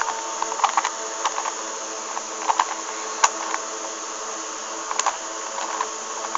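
Rubik's Cube layers being turned by hand, giving short irregular plastic clicks and clacks, over a steady background hum.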